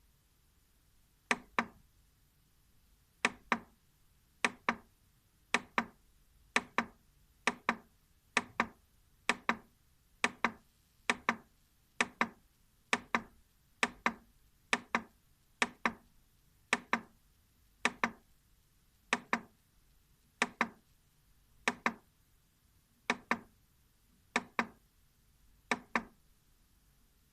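Sharp clicks, each a quick double click, repeated at an uneven pace of roughly one a second.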